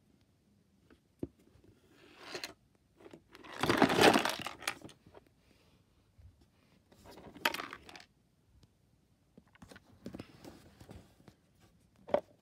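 Irregular bursts of rubbing and rattling noise as a hand shakes a Miele front-loading washing machine and brushes against the camera near the microphone. The longest and loudest burst comes about four seconds in, and a sharp click comes near the end.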